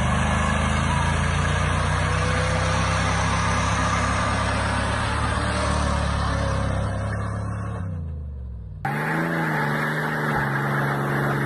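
Pickup truck engine held at high, steady revs during a burnout with the rear tires spinning, the revs dropping about two-thirds of the way through. After an abrupt cut, another pickup's engine pulls under load.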